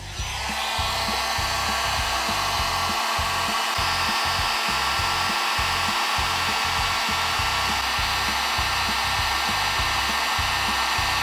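Electric heat gun switched on, rising in pitch in the first moment, then blowing steadily with an even rushing hiss and a faint whine. It is shrinking heat-shrink tubing over a heating-cable splice.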